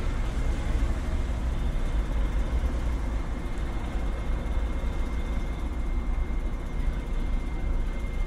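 Slow-moving road traffic: a steady, unbroken low rumble of cars passing, with a thin steady high tone running through it.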